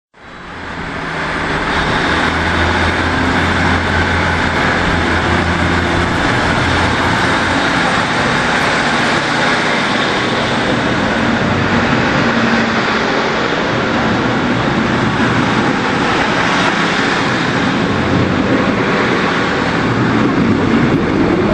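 Diesel multiple-unit passenger train pulling into a station platform: a steady engine drone with rolling and rail noise, fading in over the first second.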